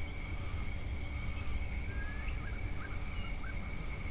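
Outdoor nature ambience: a steady high-pitched insect drone, with a few brief, faint bird chirps between about two and three seconds in, over a low background rumble.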